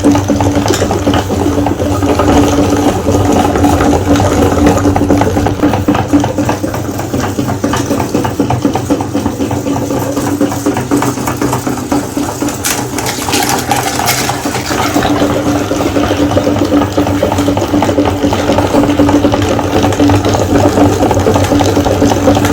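Electric meat grinder running, a steady motor hum with irregular crackling and squelching from what is being fed through it.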